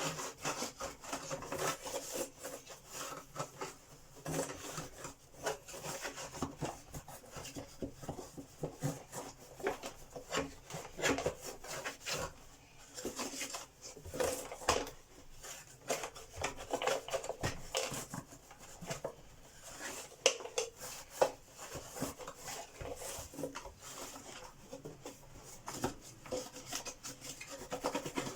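Hand-cleaning an Electrolux 612 upright vacuum cleaner's body and dust box: quick, irregular rubbing and scrubbing strokes with scattered knocks and clicks.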